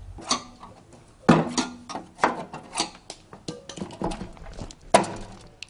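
Metal knocks and clanks, several separate hits, some ringing briefly, as the broken blower of a grape harvester is taken apart by hand to find what is damaged.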